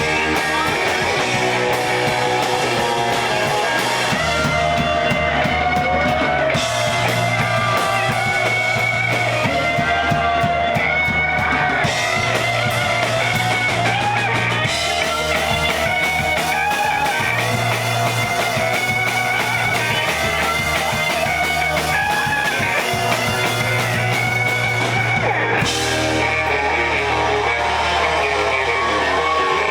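A rock band playing live: electric guitar lines over bass and a drum kit. The cymbals drop out for a few seconds at a time.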